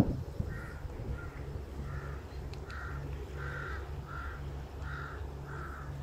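A crow cawing over and over, about ten evenly spaced caws, roughly one every 0.7 seconds, over a low rumble of wind.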